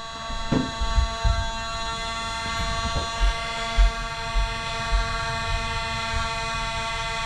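Motorized Nerf blaster's flywheel motors spinning with a steady electric buzz, with a few dull thumps from handling or footsteps.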